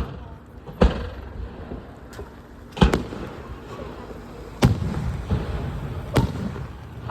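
Aerial fireworks shells bursting at a public display: five loud booms spaced one to two seconds apart, with a couple of fainter pops between them. Each boom is followed by a low rumbling tail.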